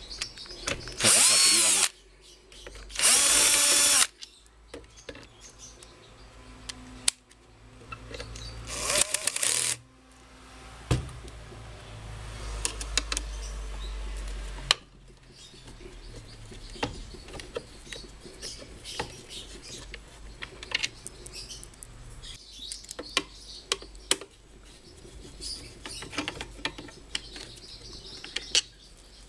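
Cordless drill-driver spinning out the nuts on the water pump's top cover, in three short whining bursts over the first ten seconds. After that come scattered small metallic clicks as the loosened nuts and hand tools are handled.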